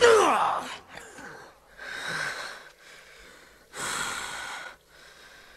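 Animated lioness snarling and hissing: a loud falling vocal sound at the very start, then two breathy snarls about a second long each.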